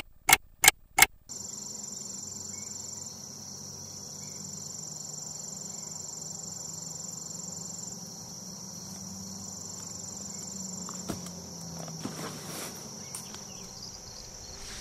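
About four sharp clock-tick sound effects in quick succession, marking a time skip, then a steady, high-pitched chorus of insects such as crickets, with a few faint rustles near the end.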